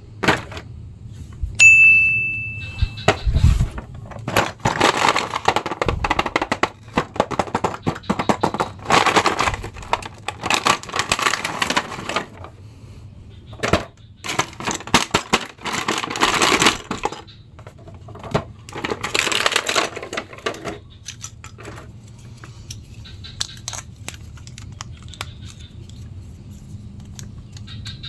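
Plastic packaging and a cardboard action-figure box crinkling, rustling and tearing as they are opened by hand, with many small clicks and taps. A short ringing ding sounds about two seconds in.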